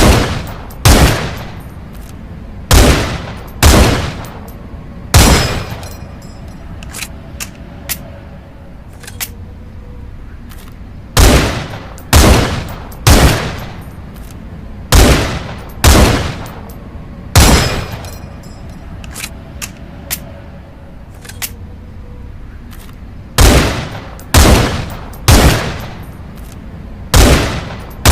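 Rifle firing single shots, each with a short ringing tail, about one a second in strings of three to six shots. Between the strings there are a few softer clicks.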